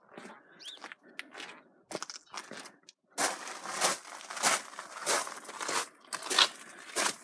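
Footsteps crunching at a steady walking pace, about three steps every two seconds, starting about three seconds in.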